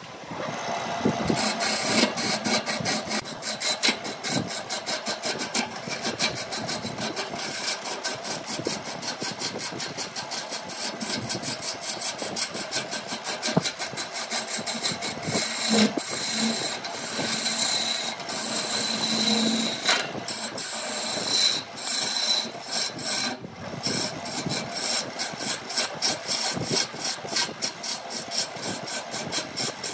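Lathe gouge cutting into a spinning wood blank. It makes a steady, rasping scrape with a fast, regular chatter of the tool against the wood, and starts abruptly.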